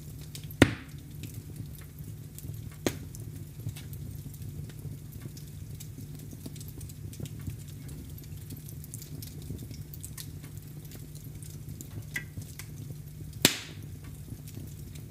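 Fireplace fire crackling, with many small pops and two loud sharp pops, about half a second in and near the end, over a low steady rumble.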